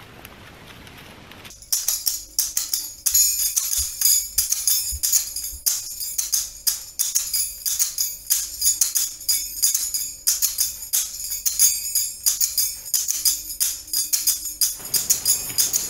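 Background music: a fast, steady jingling percussion rhythm that comes in about a second and a half in.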